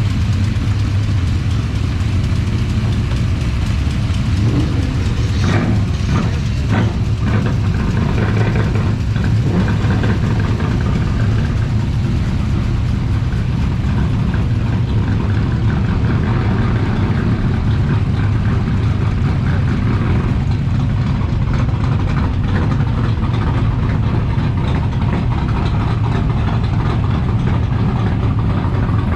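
A car engine idling with a steady low rumble, with a few brief sharper sounds between about five and ten seconds in.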